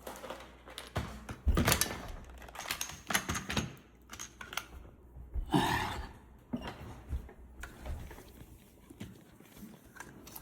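Irregular clicks, taps and clacks of small plastic drone parts and a hand tool being handled and worked, with one louder brief scrape or knock about five and a half seconds in.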